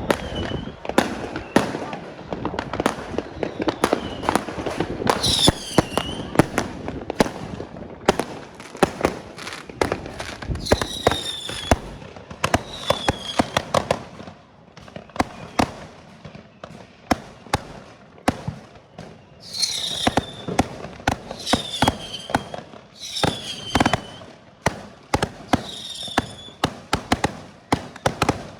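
Many fireworks going off at once all around: a dense, irregular stream of cracks and bangs, with short high whistles that fall in pitch several times.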